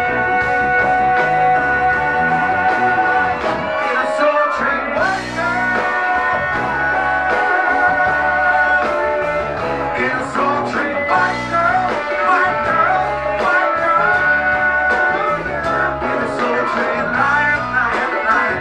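Live band music with male singing, the voices holding long sustained notes over a steady bass and drum groove.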